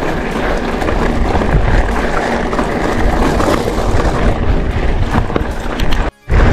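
Mountain bike tyres rolling over loose crushed-stone gravel, a steady crunching and rattling with wind buffeting the microphone. The sound cuts out for a moment near the end.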